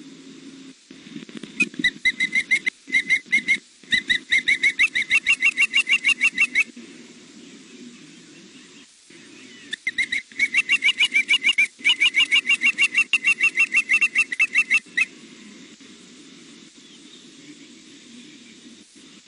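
Young osprey calling: two long bouts of rapid, evenly repeated whistled chirps, each note slurring upward, about seven or eight notes a second. A low steady hum runs under them.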